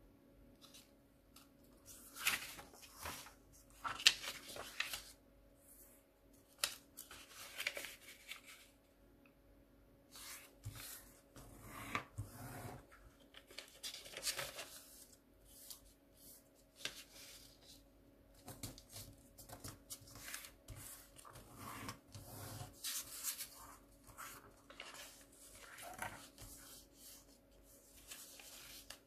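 A sheet of origami paper being handled, folded and creased by hand: irregular crinkling and rustling with sharp scrapes as the folds are pressed down. A faint steady hum runs underneath.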